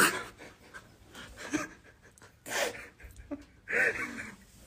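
A handful of short, breathy gasps and huffs of stifled laughter from men reacting to a surprise, the first one the loudest.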